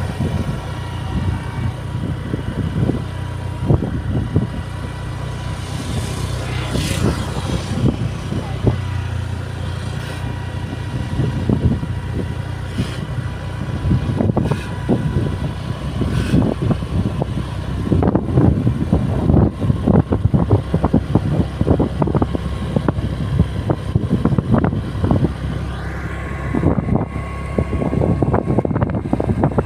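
A motor vehicle running, with a steady low rumble and many irregular short knocks or buffets.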